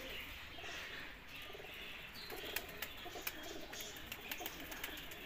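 Faint cooing of domestic pigeons.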